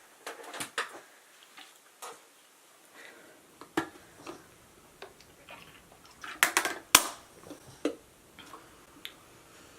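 Scattered small clicks and taps, with a quick cluster of louder clicks about six and a half to seven seconds in.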